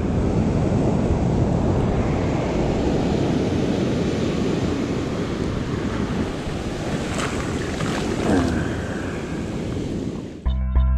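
Ocean surf breaking and washing up the beach, with wind buffeting the microphone. About half a second before the end it cuts off and ambient music begins.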